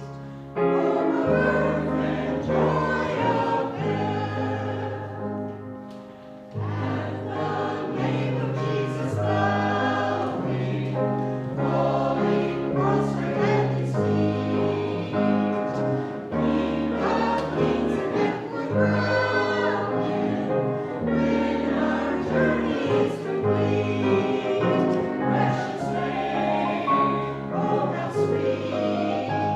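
A choir singing with instrumental accompaniment that holds long, deep bass notes beneath the voices. The music softens briefly and picks up again about six seconds in.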